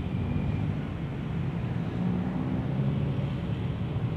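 Low, steady rumble of a diesel locomotive's engine as it moves slowly through the station yard.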